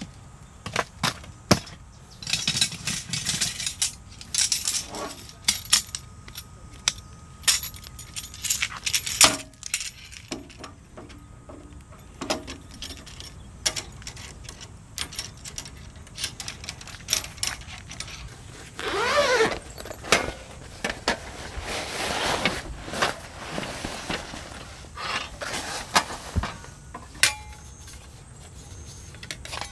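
Camping gear being handled by hand: metal S-hooks clinking on a hanger bar and folding metal frame parts clicking and knocking, with rustling of a fabric bag and a brief rasping rustle about two-thirds of the way through.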